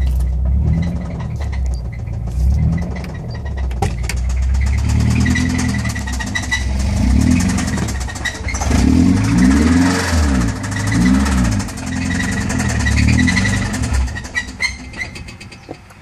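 Car engine running and revved up and down several times, sounding pretty terrible; the owner says its bearings are very bad.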